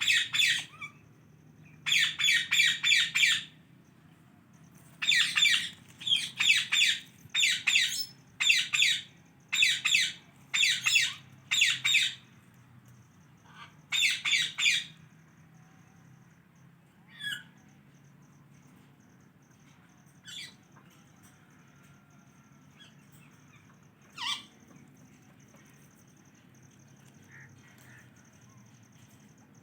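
Indian ringneck parrot giving loud, harsh squawks in quick runs of several calls through the first half. Only a few single short calls follow after that.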